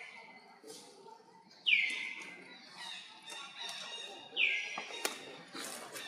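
Two short, high animal calls, each sweeping down in pitch, about two and a half seconds apart; the first is the loudest sound here. A few sharp taps or clicks follow near the end.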